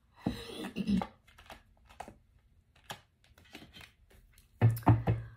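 Tarot cards being handled: scattered soft clicks and rustles of cards, with a brief low murmur of a voice near the end.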